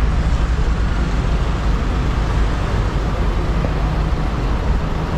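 Road traffic on a busy city street: cars passing close by, heard as a steady low rumble with no single standout sound.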